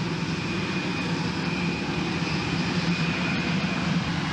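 Lockheed X-35B's Pratt & Whitney JSF119 turbofan running steadily at high power, just throttled up for a hover: an even rush of jet noise with a high whine held over it.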